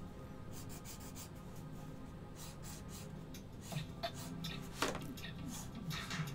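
Pen scratching across paper in quick sketching strokes: a run of short, scratchy line strokes, with a sharper one about five seconds in.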